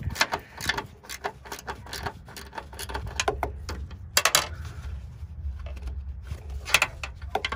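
Hand tools and metal parts clicking and clattering in irregular bursts during hands-on work on a car's rear strut mounts, over a steady low hum. The clatter is loudest about four seconds in and again near the end.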